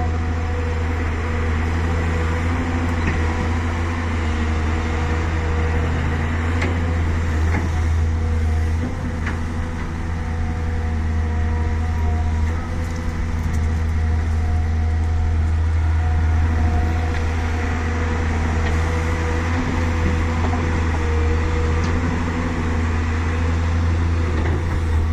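Volvo EC380D excavator's diesel engine running steadily under load, with a strong low hum that eases briefly a couple of times. A few faint clicks are heard.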